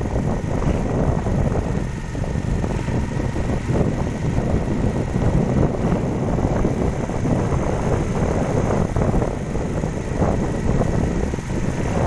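A motorbike running at steady cruising speed, with wind buffeting the microphone.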